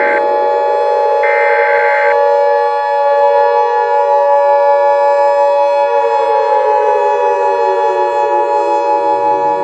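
Civil defense warning siren wailing. It finishes winding up right at the start, holds its pitch, slowly winds down from about six seconds in, and starts to rise again near the end, over a steady held tone.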